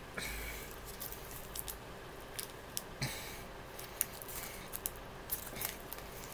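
A chocolate bar's plastic wrapper being handled, with scattered crinkles and small clicks and two short louder rustles, one just after the start and one about three seconds in.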